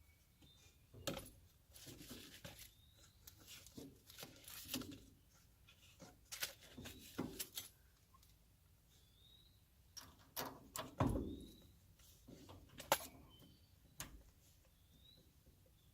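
Irregular clinks, clicks and knocks of metal parts being handled and fitted as a cut driveshaft is put back onto a tractor's three-point chipper, the loudest knocks about eleven and thirteen seconds in.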